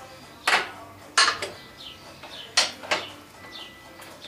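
Metal hand tools, a ratchet wrench among them, clinking and knocking as they are handled: five sharp metallic clinks within about two and a half seconds, with faint bird chirps behind.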